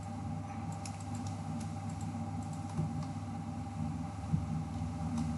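Scattered light clicks from a computer keyboard and mouse, spaced irregularly over a steady low hum.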